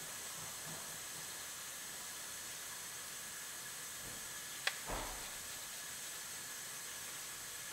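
Steady hiss as a plastic power steering reservoir is wiped clean with a rag over a parts washer, with one sharp click and a soft knock about halfway through.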